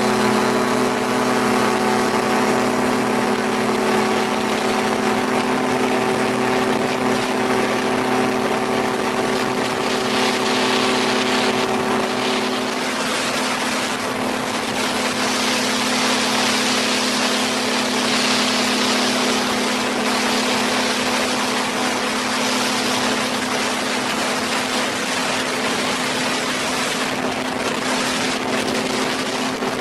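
Autogyro's Rotax 503 two-cylinder two-stroke engine running steadily at an even pitch, with a rushing hiss that swells in the middle.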